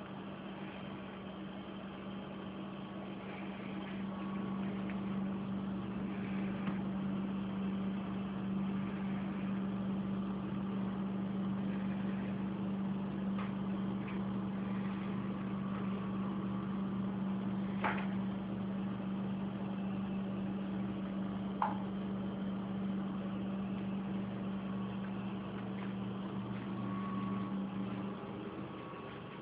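A steady low mechanical hum, with two sharp clicks about two-thirds of the way through.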